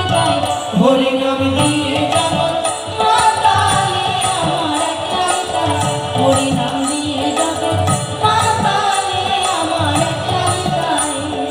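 Live Indian fusion music on stage: a melody line over hand percussion, with a steady repeating beat.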